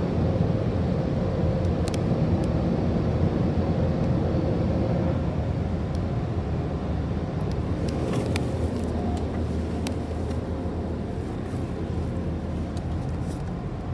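Steady low rumble of a car heard from inside its cabin as it drives slowly, with a faint steady hum and a few scattered light ticks.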